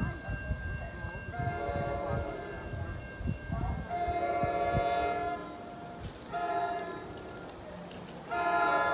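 Multi-note horn of an approaching NJ Transit commuter train blowing the grade-crossing signal: two long blasts, a short one, then a long one that starts near the end and keeps going. A low rumble lies under it.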